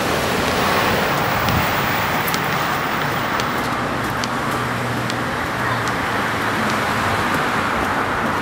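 Steady road traffic noise: a continuous rush of passing cars.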